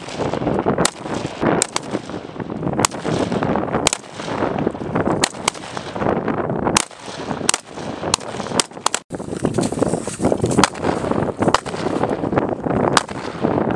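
M4 carbines firing single 5.56 mm shots at an uneven pace, about one or two a second, some in quick pairs. Each crack is followed by a lingering rumble.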